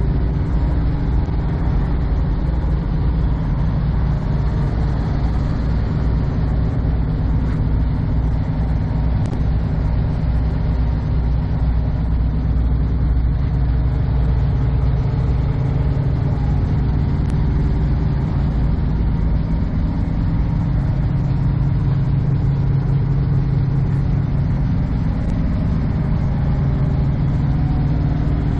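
Kenworth semi-truck's diesel engine idling steadily, a low, even rumble.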